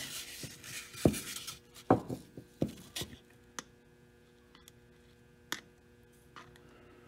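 Faint scattered taps and rubs of fingers and a pointed sculpting tool working clay around a glass eye on a foam taxidermy form, most of them in the first three seconds, over a low steady hum.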